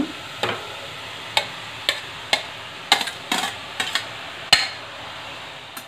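A metal spatula knocks and scrapes against a heavy cooker pot while food is tossed, with about a dozen sharp irregular clinks over a steady sizzle of vegetables frying in oil.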